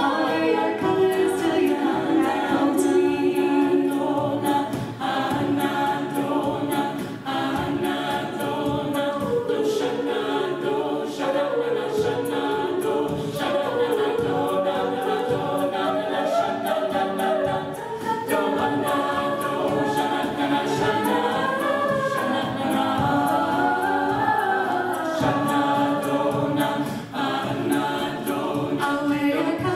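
A mixed-voice a cappella group singing a pop song in close harmony, with two women singing lead over the backing voices.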